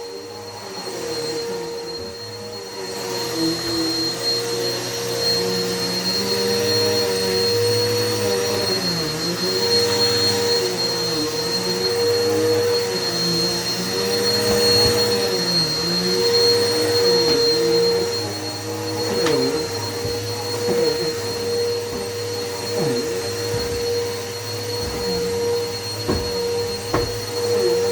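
Vacuum cleaner running steadily with a high whine, its motor pitch dipping and recovering again and again. A few brief knocks come in the second half.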